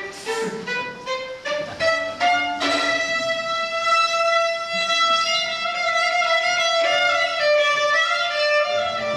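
Solo melody on a bowed string instrument: a quick run of short notes, then long held notes that step down in pitch near the end.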